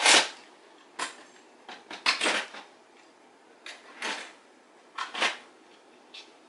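Irregular knocks and clunks of objects being handled and set down, the loudest right at the start, then several more spread over the next five seconds.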